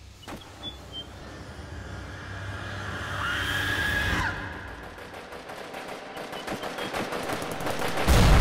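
Rapid machine-gun fire laid into a film soundtrack, building louder over a rising rush of noise, with a brief whistling tone a few seconds in and a sudden heavy low hit near the end.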